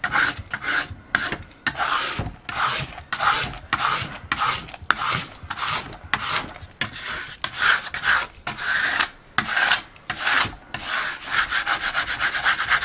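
Plastic scraper rubbed in repeated strokes over the transfer paper of a vinyl stencil on a wooden board, burnishing it down to push out the air bubbles. The strokes come quicker and shorter near the end.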